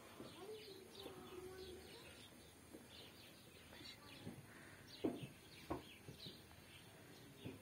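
Small birds chirping faintly in quick, short, repeated calls, with two short knocks about five seconds in.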